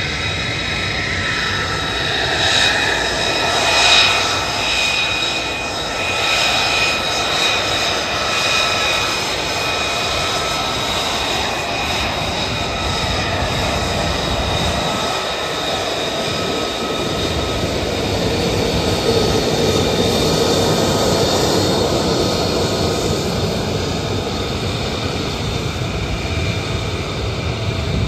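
F-35A Lightning II jet engines (Pratt & Whitney F135 turbofans) running at taxi power as the jets roll along the runway. The sound is a steady high whine of several held tones over a rushing rumble, swelling as a jet passes close.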